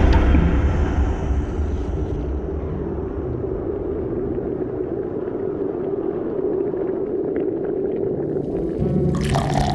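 A steady low rumble, with the high ringing tail of a loud hit dying away over the first two seconds.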